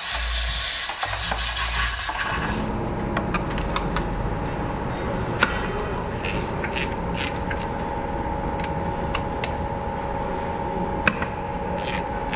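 Repair-shop sounds: a loud steady hiss for the first couple of seconds, which stops abruptly. Then a steady hum with scattered sharp metallic clinks and taps of tools.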